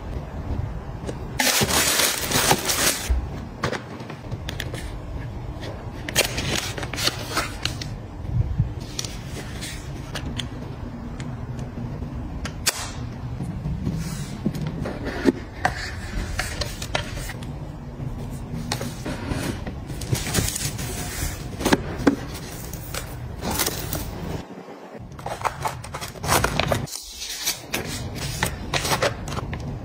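Packaging being handled and unpacked: tissue paper rustling and crinkling, with cardboard box and plastic sachet handling and light taps in irregular bursts. The loudest rustle comes a couple of seconds in.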